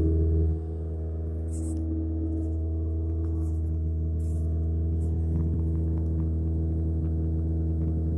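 A 1978 Honda Civic's four-cylinder engine idling steadily. Its revs drop back from a brief rise about half a second in.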